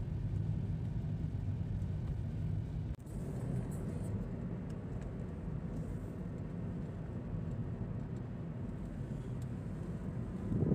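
Car on the move: a steady low engine and road rumble that cuts out for an instant about three seconds in.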